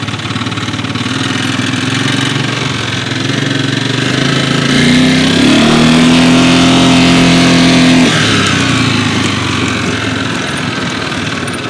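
Side-by-side utility vehicle's engine running while driving; about four seconds in it speeds up, holding higher and louder for about three seconds before easing off again.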